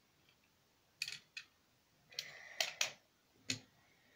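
Small Norev die-cast model cars being handled on cardboard and a wooden floor: a few sharp clicks, a short scraping rattle about two seconds in, and another click near the end as a car is pushed into its parking slot.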